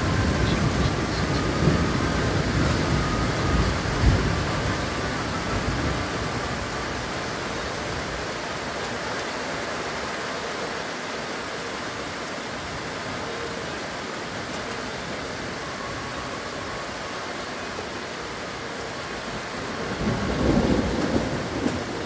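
Steady rain with rolling thunder: a low rumble over the first few seconds with a sharp clap about four seconds in, easing to rain alone, then thunder rumbling again near the end.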